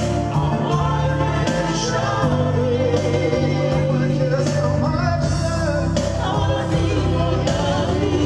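Live dance band playing a song with a singer, backed by keyboard and electric guitar.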